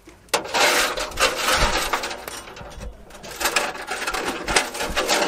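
Rustling and scraping of a coil of plastic fuel line as it is pulled and fed through a van's underbody, the line rubbing against itself and the chassis, with a few light knocks. It eases off for about a second midway, then picks up again.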